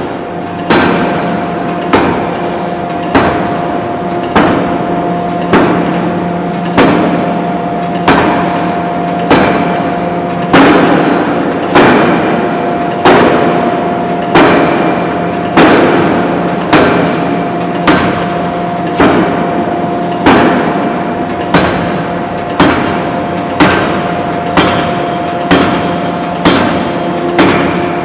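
Hydraulic open-die forging hammer striking a hot steel anchor chain blank again and again, about one heavy blow a second. Each blow rings briefly over a steady machine hum.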